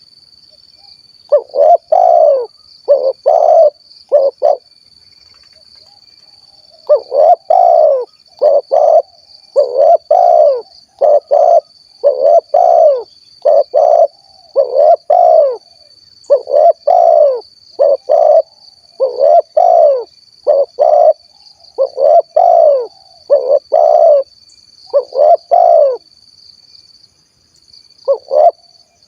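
Spotted dove (tekukur) cooing its 'kuk 1' song: phrases of three or four low, rounded coo notes, repeated about every two to three seconds, with a pause of about two seconds after the first phrase. A thin, steady high-pitched tone runs underneath throughout.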